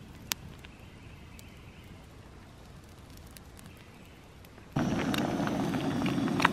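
Small stick campfire crackling faintly, with a sharp snap near the start. About three-quarters of the way in, a loud, steady sizzle of eggs frying in a wok starts suddenly.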